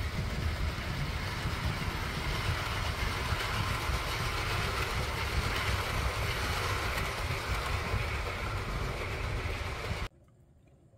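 A 00 gauge model train running on the layout's track, giving a steady rolling rumble that stops suddenly near the end.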